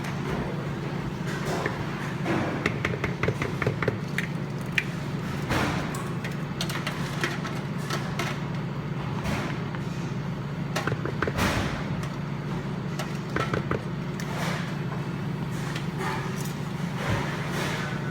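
Batter being mixed in a bowl: quick clicks and knocks of a utensil against the bowl, with a fast run of ticks about two to four seconds in, over a steady low hum.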